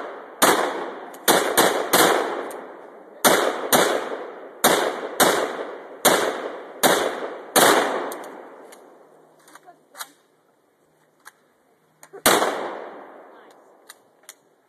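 Gunfire: about eleven shots in quick succession, some less than half a second apart, each with a trailing echo. One more shot follows about twelve seconds in, with a few faint clicks of gun handling in the pause.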